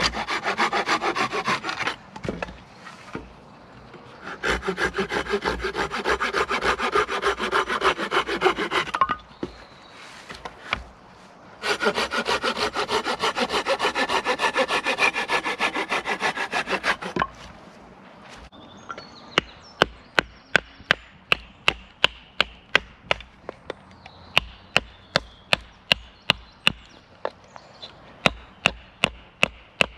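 Wood being sawn by hand in three long spells of quick strokes. From about two-thirds of the way through come sharp, evenly spaced knocks, about two a second.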